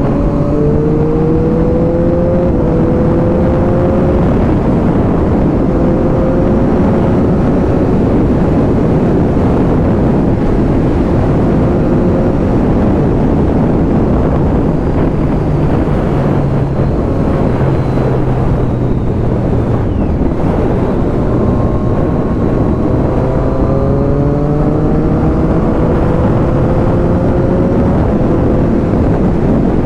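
Triumph Daytona 675 sports bike's three-cylinder engine pulling away on the move, its pitch climbing in steps through the gears in the first few seconds and again in the last third, steadier in between. Wind noise on the microphone throughout.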